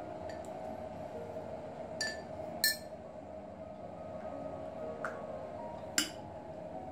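Metal tea infuser and spoon clinking against glass: a light clink about two seconds in, a sharper one just after, and another sharp clink near the end as the steel mesh infuser is set down into a glass teapot.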